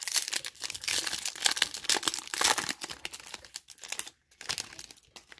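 Shiny trading-card pack wrapper being torn open and crinkled by hand: a dense crackle for about three seconds, then a few softer crinkles before it stops near the end.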